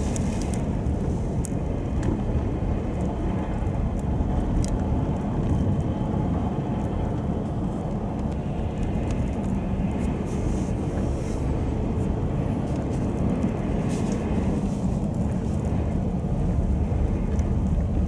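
Steady low rumble of vehicle engine and tyre noise on a snow-covered road, with a few faint ticks.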